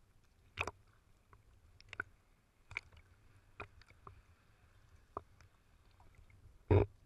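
Small sea waves lapping and slapping at the water surface right at the microphone, a faint steady wash broken by irregular sharp splashes, the loudest near the end.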